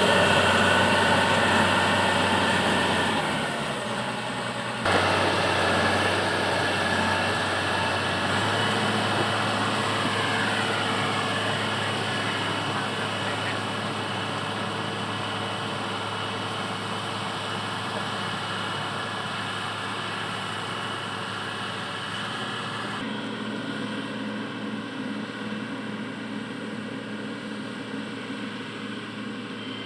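Komatsu GD511A motor grader's diesel engine running steadily, growing gradually fainter.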